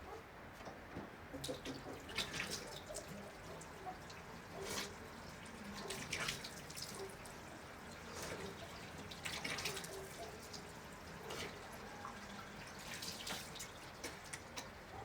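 Water dripping and splattering irregularly, a drip every second or two, over a steady background hiss.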